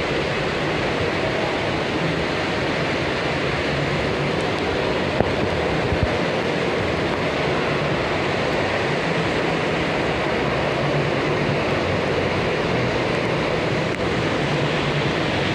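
Steady, even rushing noise with a faint low hum coming and going.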